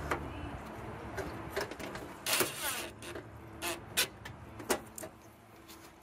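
DeWalt 20V cordless driver spinning briefly, driving mounting screws into the fountain's sheet-metal frame: one short run a little over two seconds in, then several sharp clicks and knocks of the screws and metal.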